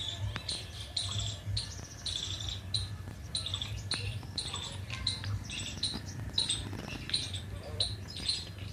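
Small birds chirping over and over, short high calls about twice a second, with a low steady hum underneath.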